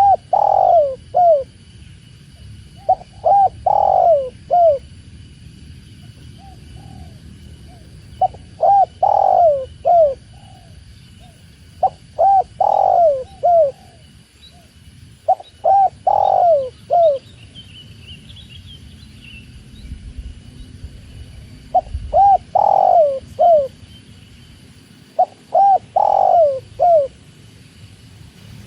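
Spotted dove (tekukur) singing its cooing song: a short phrase of several coos, repeated about every three to four seconds, seven times over.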